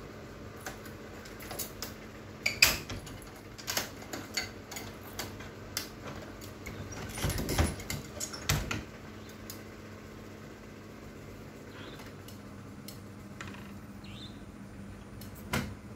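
A wooden door being unlatched and opened: a run of sharp clicks, knocks and rattles, loudest about halfway through. After that only a steady low hum is left, with one more knock near the end.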